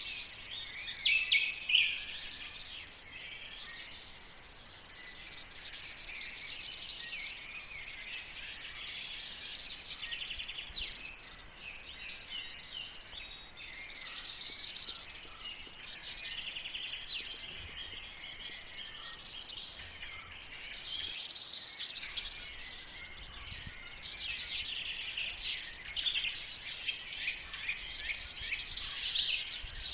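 Several songbirds singing and chirping in overlapping phrases, over a faint steady background hiss, with a louder burst of chirps about a second in.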